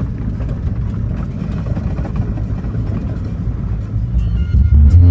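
Car driving, heard from inside the cabin as a steady low rumble. About four seconds in, loud music with a heavy bass line and a steady beat starts on the car stereo.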